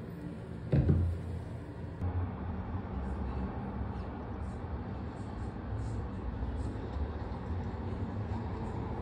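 A short knock about a second in as an amenity bottle is handled on a stone counter, then a steady low hum of city traffic heard through a window.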